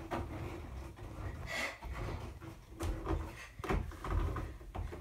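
Wooden climbing holds and board knocking and creaking under a child's weight as he hangs and swings from them, with a few irregular dull knocks.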